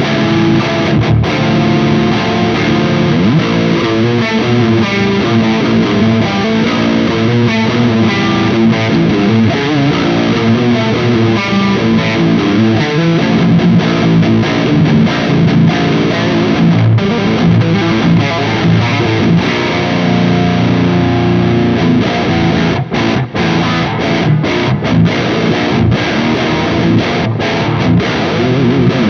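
Ibanez Universe UV7P seven-string electric guitar played through heavy distortion.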